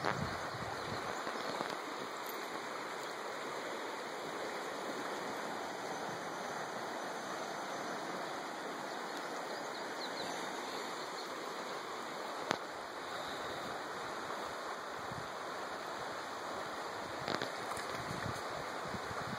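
Fast-flowing river rushing steadily past, running high. A sharp click about twelve seconds in and another a few seconds before the end.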